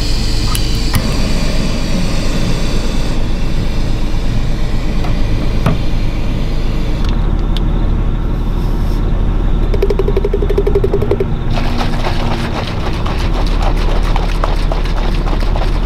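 Backpacking canister stove burning with a loud, steady hiss. In the last few seconds a bottle is shaken, with a fast rattle.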